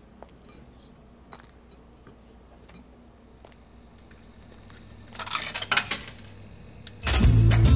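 Coins dropped into a jukebox's slot, rattling for about a second, then a click. Near the end the jukebox starts playing and loud music comes in suddenly.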